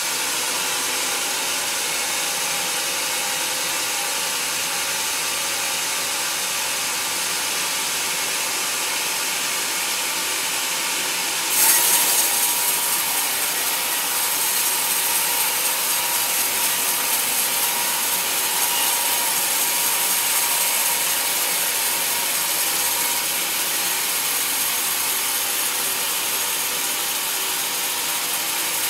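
Band sawmill blade cutting lengthwise through a teak log, a steady sawing whine and hiss. About eleven seconds in it suddenly gets louder and brighter, then runs steadily on.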